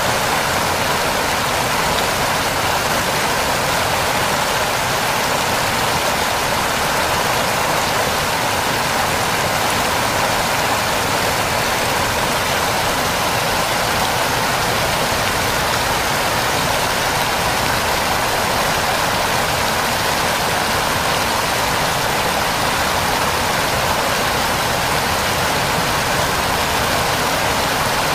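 Waterfall: a steady, unbroken rush of falling water that does not change.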